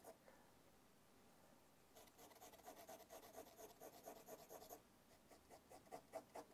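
Faint scratching of a pencil hatching on drawing paper: quick, evenly repeated strokes laying parallel shading lines. They start about two seconds in, stop briefly about a second before the end, then resume.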